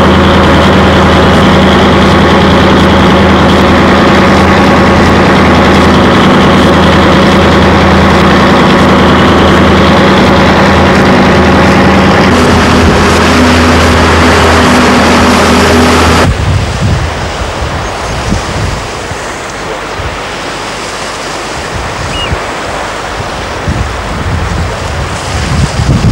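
A boat's engine running steadily and loudly, its note shifting slightly about halfway in. About two-thirds of the way through it cuts off abruptly to wind buffeting the microphone over the wash of surf.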